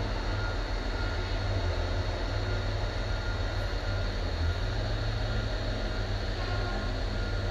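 An engine running steadily, heard as a continuous low rumble with a few faint steady higher tones over it.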